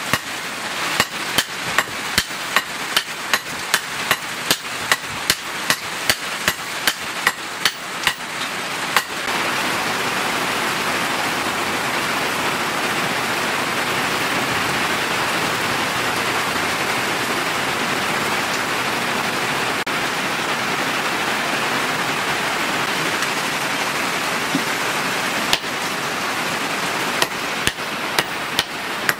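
Two smiths hammering red-hot leaf-spring steel on an anvil in alternation, sharp blows about twice a second, over steady heavy rain. After about nine seconds the hammering stops and only the rain is heard, with a few more hammer blows near the end.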